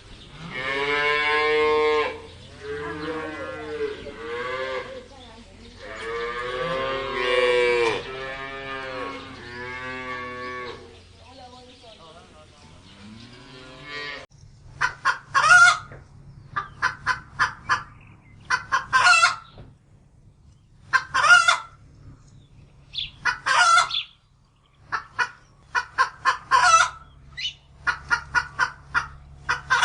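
Cattle mooing in a series of long, drawn-out calls for about the first half. Then chickens clucking in quick runs of short clucks, a run every couple of seconds.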